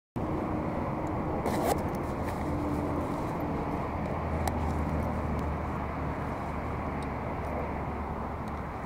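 Steady low outdoor rumble, with a few light clicks and taps.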